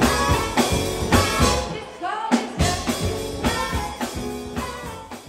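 Band music with drum kit and guitar, a voice singing, fading out near the end.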